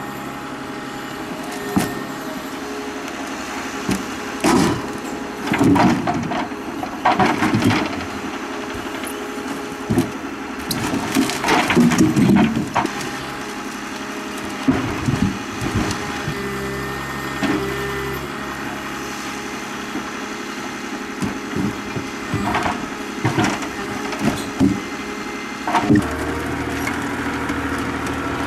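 Rottne F13-C forwarder's diesel engine running steadily while logs are handled on its load, with repeated loud wooden knocks and clunks as logs strike one another, some single and some in quick clusters.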